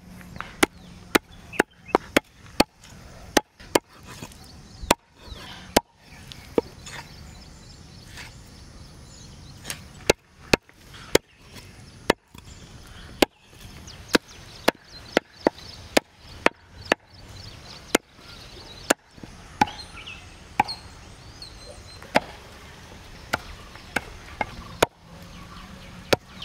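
Knife chopping on a wooden board: a long run of sharp, separate chops at an irregular pace, about one to two a second.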